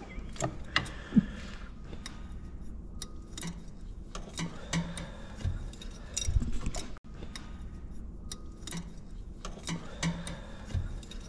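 Irregular small metallic clicks and clinks of hand tools on an aircraft engine's fittings, with a few duller knocks about six seconds in.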